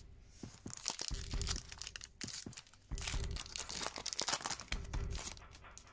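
Foil Pokémon card booster pack crinkling and tearing as it is handled and ripped open by hand. A soft low pulse repeats about every two seconds underneath.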